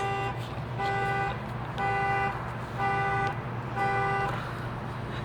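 Car horn honking in a steady alarm pattern, five half-second blasts about one a second, set off by the car alarm; the honking stops about four and a half seconds in, leaving a steady low hum.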